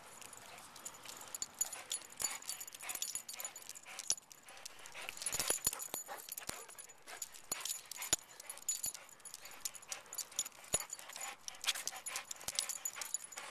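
A Vizsla's claws clicking and scuffing irregularly on concrete as it darts about, with the dog's panting.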